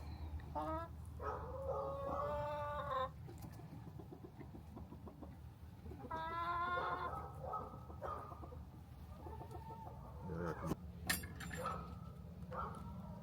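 Chickens clucking, with several drawn-out pitched calls, the longest about a second in and another just past the middle, over a steady low hum.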